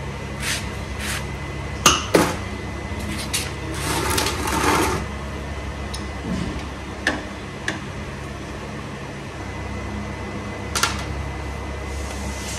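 Spanner and pliers clinking and knocking against metal bolts on a motorcycle engine: scattered sharp clicks a second or more apart, with a short rustling scrape about four seconds in, over a steady low hum.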